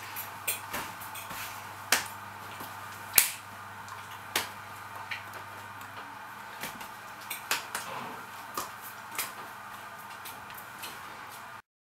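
Irregular sharp slaps and clicks of hands striking and brushing together while signing, over a steady background hiss and hum. The sound cuts off abruptly just before the end.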